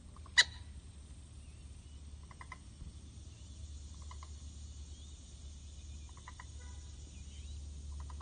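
Common gallinule calling: one loud, sharp note about half a second in, then soft clucking notes in quick groups of two or three, several times.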